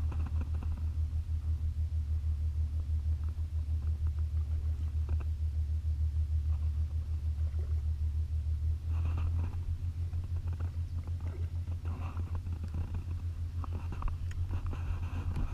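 Low, steady rumble of wind buffeting the camera microphone, with a few faint clicks from handling the fly rod and reel, more of them in the second half.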